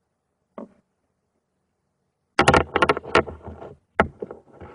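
Small paint pots being handled: a single knock, then a quick run of sharp clicks and clatters lasting about a second, and one more knock near the end.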